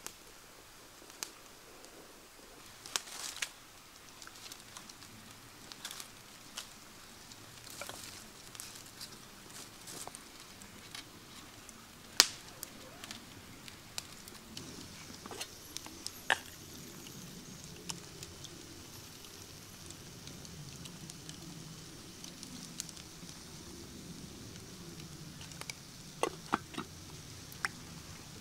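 Scattered light clicks and knocks of hands handling things, with one sharper knock about twelve seconds in and a quick cluster near the end; from about halfway a faint steady hiss and low rumble sit underneath.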